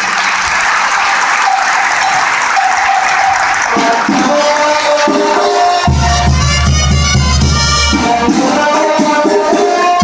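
Crowd applauding at the end of a speech, with music fading in under it; about six seconds in, the music comes in fully with a heavy bass beat.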